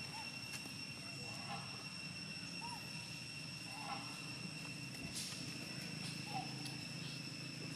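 A few short, soft chirping calls and scattered faint clicks while long-tailed macaques feed on lotus seed pods. Under them runs a steady high two-note whine and a low hum.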